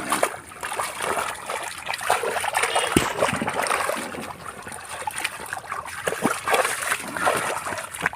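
Water splashing and trickling, with many small irregular splashes, and one sharp knock about three seconds in.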